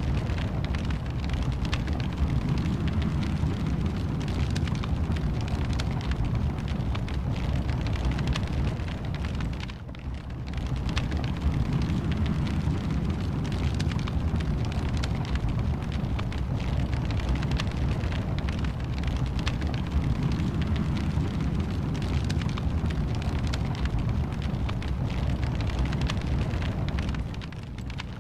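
Wood fire in a fireplace crackling and popping over a steady low rumble of the flames; the sound dips briefly about ten seconds in and again near the end.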